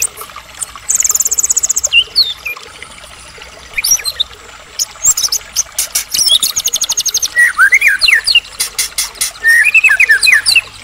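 White-rumped shama (murai batu) in full, loud song. It is a varied run of fast high trills, whistled up- and down-slurred notes and sharp clicking chips. A quick trill comes about a second in and another past the middle, with a burst of clicks and lower whistled slurs near the end.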